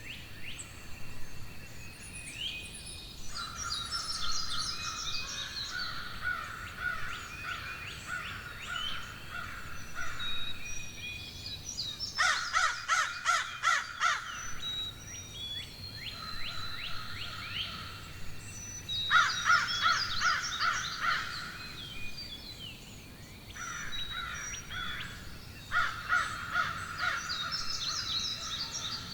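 Several birds chirping and trilling together in a dense, overlapping chorus. About twelve seconds in, one bird gives a louder run of about eight harsh, quick calls in a row.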